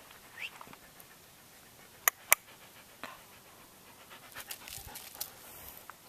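Border collie panting, with two sharp clicks in quick succession about two seconds in and a few lighter ticks later on.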